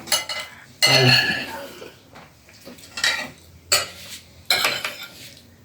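Serving utensil scraping and clinking against the pot and plate as jollof rice and chicken are dished out: several separate scrapes and clinks, with short pauses between them.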